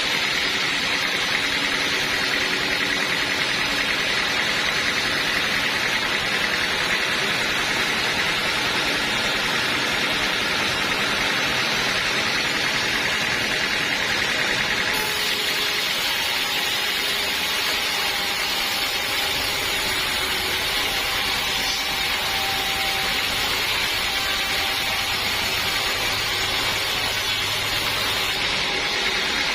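A sawmill running steadily, with a continuous machine hum and hiss that gets brighter about halfway in.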